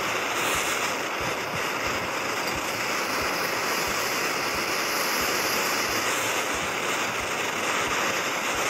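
Gas torch flame hissing steadily as it keeps silver molten in a crucible while the melt is stirred to remove impurities.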